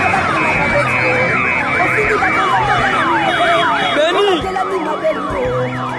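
Several vehicle sirens sounding at once, overlapping: long wails that sweep up and down, turning into faster yelps in the second half, with people's voices underneath.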